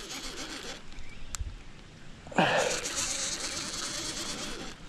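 Baitcasting reel being cranked fast: a rapid whirring buzz of its gears while a hooked fish is reeled in. It comes in two spells, stopping just under a second in and starting again about two and a half seconds in with a short falling sound, then running until near the end.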